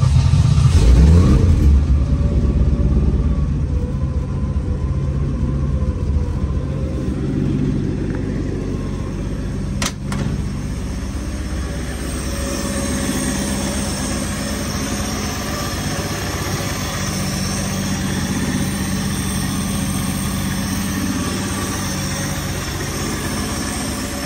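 1962 Ford Falcon's inline-six engine just after starting: it flares up in revs for the first second or two, then settles to a steady idle. A single sharp click sounds about ten seconds in.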